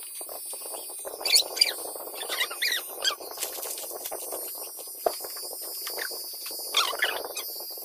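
Electric hair clippers running through a man's hair with a steady buzz. Several short, high squeaks cut over it, the loudest about a second in and again near the end.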